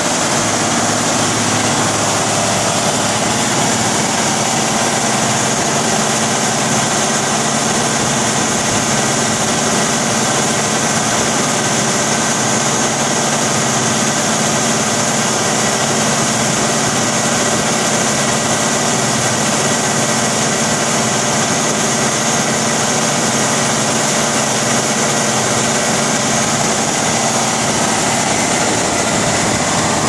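Large diesel engine of a Morbark 40/36 whole-tree chipper running steadily at an even speed, with no revving or change in pitch.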